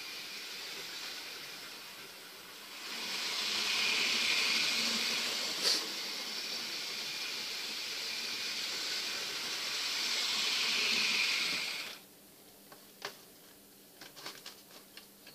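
Hornby model train running on its track: a steady whirring hiss from its small electric motor and wheels that grows louder about three seconds in and cuts off suddenly near the end, followed by a few faint clicks.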